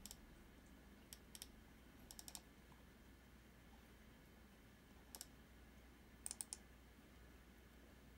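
Faint clicks of a computer mouse and keys over near silence, some single and some in quick groups of two or three.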